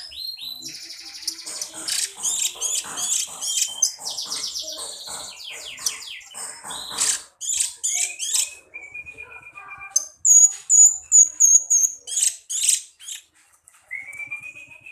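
Cucak cungkok songbird singing a fast, varied chatter of high chirps and trills. About ten seconds in comes a quick run of shrill, piercing notes, and near the end a rising whistle.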